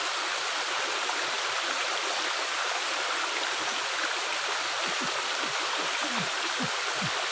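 Water running steadily through a culvert, an even rushing sound. In the second half come several short, low tones that fall in pitch.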